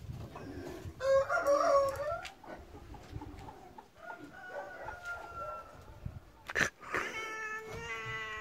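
Two drawn-out animal calls, one about a second in and one near the end, with a fainter thin call between them and a sharp click just before the second.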